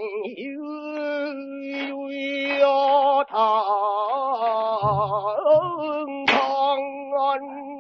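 Pansori singing: one voice holding long notes with a wide, wavering vibrato, sliding and stepping between pitches with short breaks between phrases.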